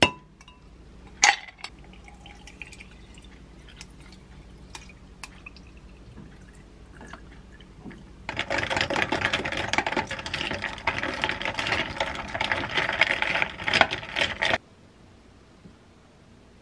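Ice cubes clinking into a glass, then sparkling water poured over ice and pomegranate syrup, fizzing and hissing for about six seconds before it cuts off suddenly.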